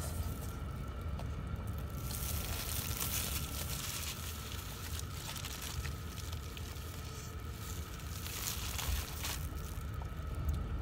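Plastic gloves and a food wrapper crinkling and rustling while someone eats, in two longer spells about two seconds in and again near the end. Underneath runs a steady low rumble with a thin constant hum inside the car cabin.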